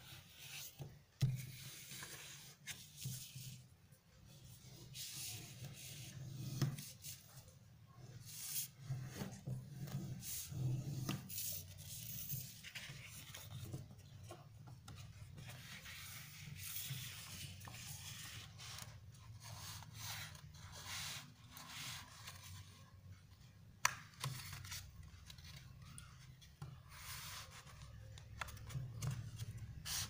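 Paper being folded and creased by hand against a wooden tabletop: irregular rubbing and rustling strokes with a few sharp taps, over a low steady hum.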